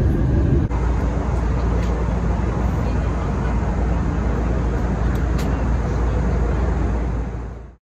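Jet airliner cabin noise during descent: a steady, loud rumble of engines and airflow, heaviest in the low end. It cuts off abruptly near the end.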